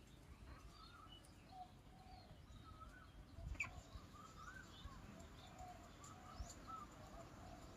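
Ducklings giving faint, scattered soft peeps and trills while grazing, with one brief sharp click a little past three and a half seconds in.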